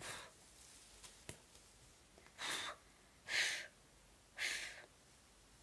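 A person breathing out in short puffs of air, four of them roughly a second apart, with a faint click just over a second in.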